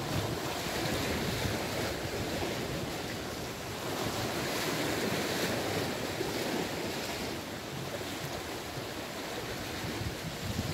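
Sea waves washing and breaking against the rocks of a breakwater, rising and falling in surges, with wind buffeting the microphone.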